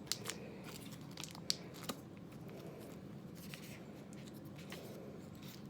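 EPIC bar wrapper being worked at and torn open by hand, with faint crinkling and a scattering of sharp little ticks and snaps.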